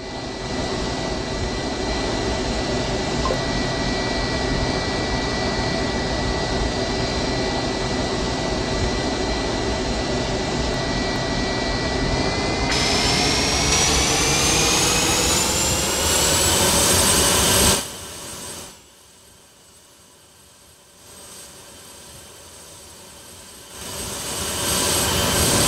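Jet airliner engines heard from inside the cabin: a steady loud rush with a thin whine. About halfway through, the whine rises in pitch and grows louder as the engines spool up. Near 18 s the sound drops suddenly to a much quieter cabin hum, then builds again near the end.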